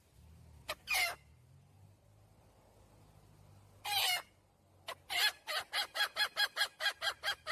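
Hen calling: two single drawn-out squawks, then from about five seconds in a fast, even run of repeated clucking notes, about four a second.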